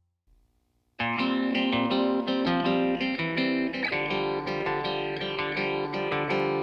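Background music: after about a second of silence, a gently picked guitar piece starts.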